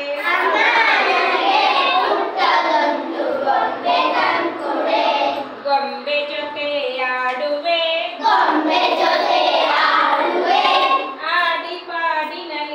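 A group of young schoolchildren singing a Kannada children's action song together, in sung phrases with short breaks between them.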